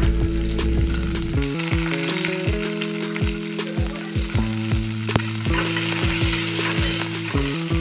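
Chopped garlic, ginger, onion and capsicum sizzling in hot oil in a pan, with short clicks and scrapes of a spatula stirring them.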